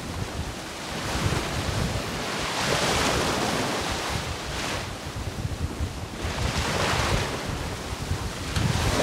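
Wind buffeting the microphone over the rush of sea waves. The hiss swells and fades about every two seconds, over a low rumble.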